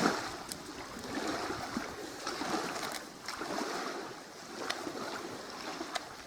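Water lapping in uneven swells, with a few sharp clicks scattered through it.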